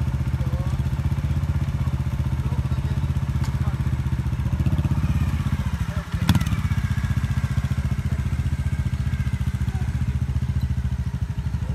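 Trials motorcycle engine running at low, steady revs while the bike balances on the rocks, with one sharp knock a little past halfway, just after the engine briefly dips.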